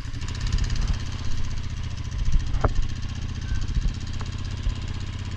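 Vehicle engine idling steadily, with one sharp click about two and a half seconds in.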